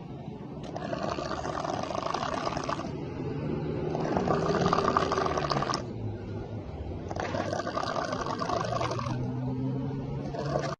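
A person snoring heavily: three long, fluttering breaths about three seconds apart, with a low steady drone between them.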